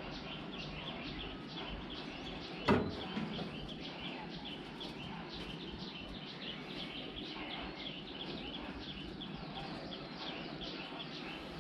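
Birds chirping on and on in quick repeated short notes over a steady background hiss, with one sharp knock a little under three seconds in.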